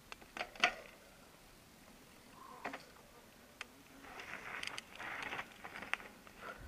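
Sharp knocks and clicks as a mountain bike is lifted and handled, then gravel crunching about four seconds in as it moves along a stony dirt trail, with more clicks over it.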